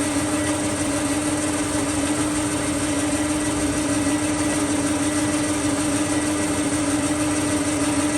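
Jones & Shipman 1300 cylindrical grinder running under power, its motors giving a steady hum with one strong even tone over a hiss.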